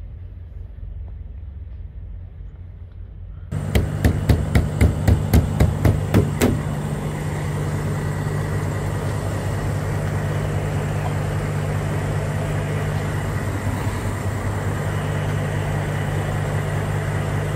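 A faint low rumble, then a few seconds in a louder, steady semi-truck diesel idle sets in. Over the first three seconds of the idle there is a quick run of about ten sharp knocks, about three a second.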